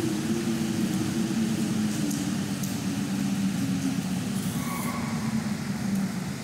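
A steady low mechanical hum, engine-like, with a couple of held tones. A short, fainter higher tone joins it about two-thirds of the way through.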